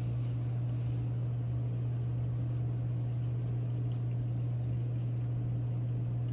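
Reef aquarium's water pumps running with a steady low hum, over the trickle and splash of circulating water.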